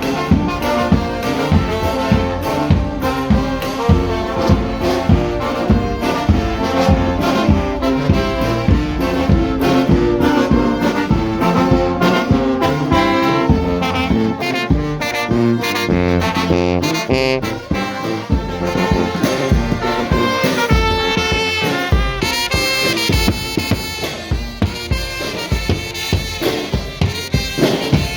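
Brass band playing a tune, with trumpets and trombones over a steady drum beat.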